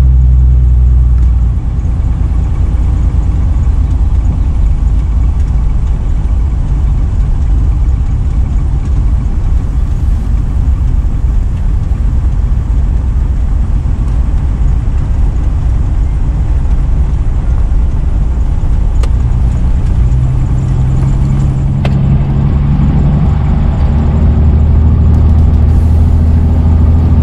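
Jeep Wrangler YJ's 4.2-litre inline-six running on the road, with road noise heard from inside the cab. The engine note strengthens and climbs a little in pitch near the end as it accelerates.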